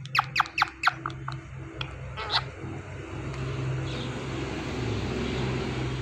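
Indian ringneck parakeet giving a quick run of about six short, shrill squawks in the first second, then one more about two seconds in. A steady low rumble with hiss builds behind it from about halfway through.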